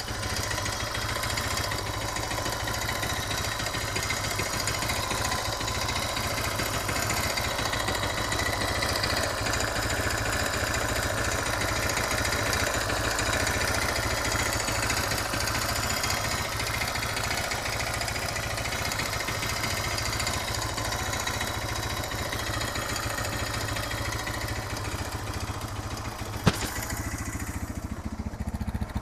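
Suzuki DR650 single-cylinder engine running steadily, with the clacking noise the owner hears at neutral and low revs; he has already checked the valve clearance and the cam chain tensioner without finding the cause. One sharp click stands out near the end.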